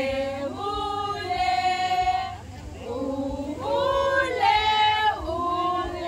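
A small group of women singing together unaccompanied, holding long notes in phrases.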